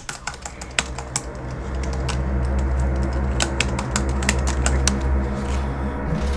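Typing on a laptop keyboard: irregular keystroke clicks that thin out near the end, over a steady low hum that swells in during the first two seconds.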